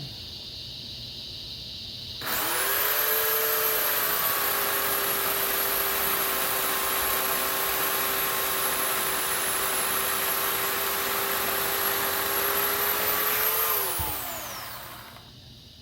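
Bauer 16-inch corded electric chainsaw (14.5 amp) starting abruptly about two seconds in and running at a steady high whine with a thin high whistle, cutting through a tree branch. Near the end the trigger is released and the motor winds down with a falling pitch.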